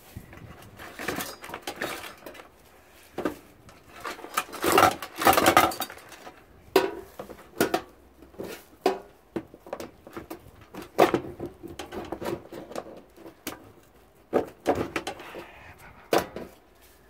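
Irregular clanks, clinks and scrapes of a hand tool and metal parts as a dishwasher is pulled apart, with a burst of loud rattling about five seconds in and a sharp knock about eleven seconds in.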